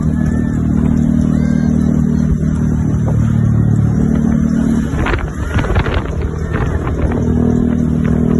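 Road traffic: a heavy vehicle engine running with a steady low drone that shifts pitch about four seconds in and again near the end, with a brief burst of clattering passing-vehicle noise around the middle.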